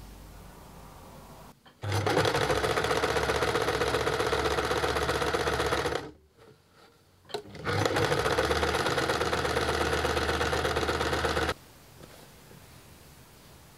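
Janome 2319S domestic sewing machine stitching a seam in cotton fabric, in two steady runs of about four seconds each with a short stop between, each starting and stopping abruptly.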